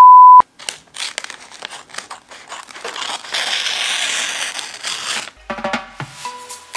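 A short, steady countdown-leader beep, then Christmas wrapping paper crinkling and rustling as it is handled and folded. Music starts near the end.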